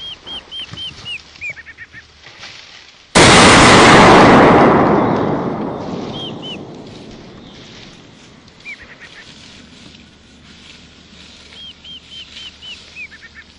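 A single close rifle shot, so loud it overloads the recording, its boom dying away over several seconds. Before and after it come runs of short, high, arching calls, four or five in quick succession.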